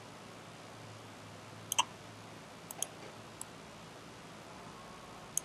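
Computer mouse clicks: sharp press-and-release clicks while on-screen items are dragged. There are two pairs a little under two seconds and near three seconds in, a single click shortly after, and another pair at the end.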